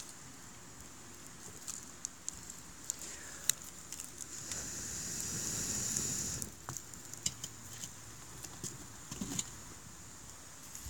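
Campfire burning with colour-flame powder, crackling with scattered sharp pops. A rushing hiss swells for a few seconds midway and cuts off suddenly.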